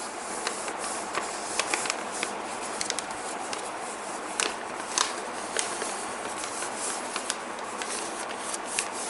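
A sheet of paper being folded back and forth into an accordion fan, with crisp irregular crinkles and rustles over a steady low hiss.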